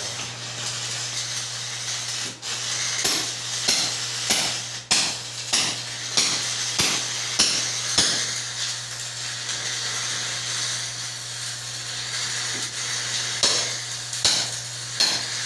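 Arc welding practice: a steady low hum from the welding machine under a crackling hiss, with sharp metallic taps about two a second for a few seconds, then only now and then.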